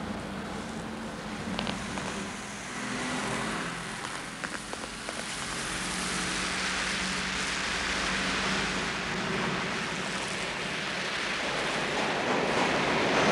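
A steady rushing rumble from a large approaching vehicle, slowly growing louder and loudest near the end, with a low hum and a few faint knocks and clicks.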